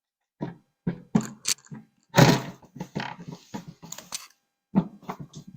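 Irregular knocks and clunks of a part being handled and set into place, with a longer scraping rattle about two seconds in.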